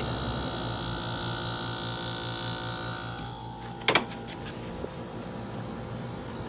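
1990 GE 12,000 BTU window air conditioner running with a steady hum and the rush of its fan on an in-between speed. A little past three seconds the fan's rushing sound drops away, and a sharp click follows about four seconds in.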